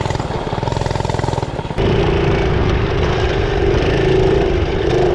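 Small single-cylinder mini bike engines running hard with their governors removed, heard over wind noise on the microphone. The first is a rapid pulsing rattle. About two seconds in, the sound changes to another bike's steady, high engine note.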